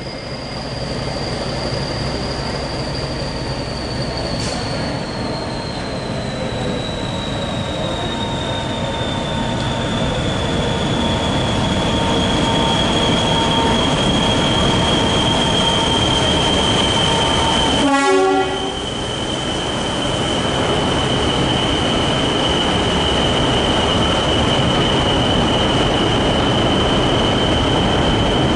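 Diesel locomotive arriving slowly at a platform and drawing past, its engine running with a deep rumble that grows louder. A single high whistle glides down in pitch over the first sixteen seconds or so, then holds steady. A brief horn sounds about eighteen seconds in.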